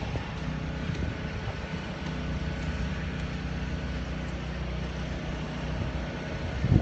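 A steady engine hum: a low, even drone with a faint higher whine above it.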